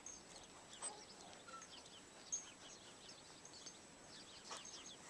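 Near-silent snowy outdoor ambience with faint, scattered high chirps and ticks and a few brief soft sounds.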